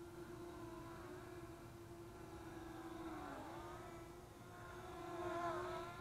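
Parrot Anafi quadcopter's propellers humming faintly in flight, one steady note with overtones. The pitch dips briefly about three seconds in and again near the end, where the hum grows louder as the drone manoeuvres.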